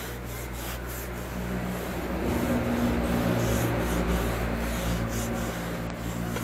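Cloth rag rubbed back and forth along the steel blade of a sanggot knife in repeated scraping strokes. Under it a steady low hum grows louder about two seconds in.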